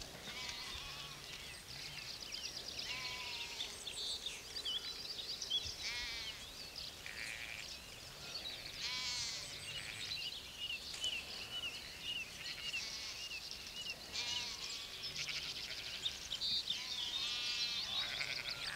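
A flock of sheep being driven across a field, many sheep bleating, often several calls overlapping.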